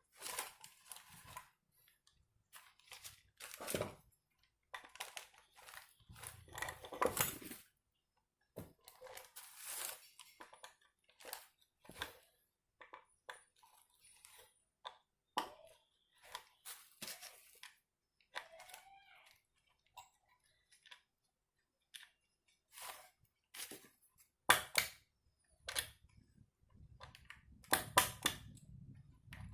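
Irregular small clicks, scrapes and crackling rustles of hands working on motorcycle speedometer parts, with quiet gaps between them and a few sharper clicks near the end.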